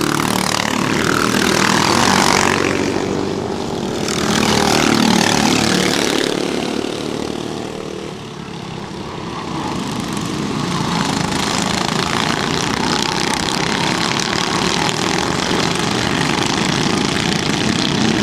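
Several 13 hp four-stroke racing kart engines running at high revs as karts pass close by, the sound swelling twice in the first six seconds. It dips near eight seconds, then settles into a steadier sound of a pack running further around the track.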